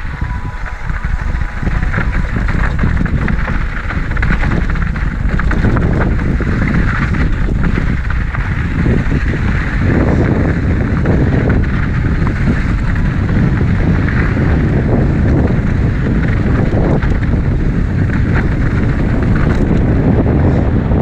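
Wind rushing over the microphone with a steady low rumble from an Ibis Mojo HD4 mountain bike's tyres rolling over a dirt trail at speed.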